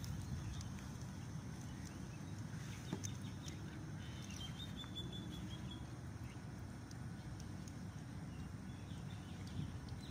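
Battered potato bread pieces frying in hot oil in a pan, with faint crackling over a steady low rumble. A bird chirps briefly about halfway through.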